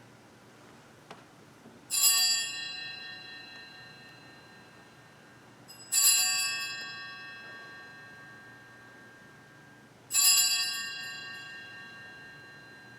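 Altar bell struck three times, about four seconds apart, each ring starting sharply and dying away slowly: the bells rung at the elevation of the chalice after the consecration.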